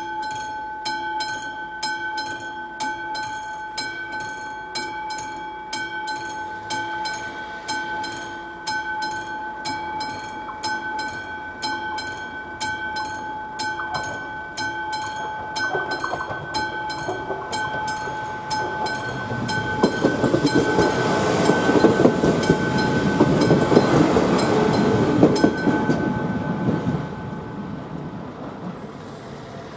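Classic level-crossing warning bell on AŽD 71 crossing signals ringing steadily, about two strokes a second. A passenger train passes over the crossing in the second half, loudest around two-thirds of the way through, and the bell stops shortly before the end as the warning ends.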